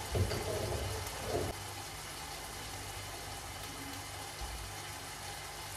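Steady low hiss and hum of a pan of onions and wine cooking on high heat, heard from across the kitchen. There is a louder stretch of handling sounds in the first second and a half.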